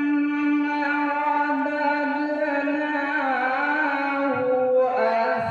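A man reciting the Quran in melodic qirat style, holding one long drawn-out note, then winding it through ornamented turns; he pauses briefly for breath near the end and starts the next phrase.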